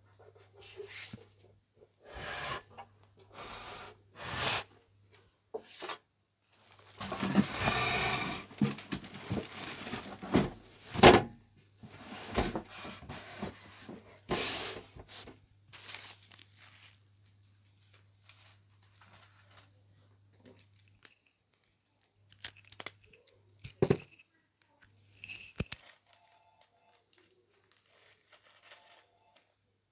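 Handling noise from a t.amp E-1500 power amplifier's metal case and its plastic packaging being moved about: irregular rustling, rubbing and scraping with knocks, busiest in the first half, with one sharp knock near the middle.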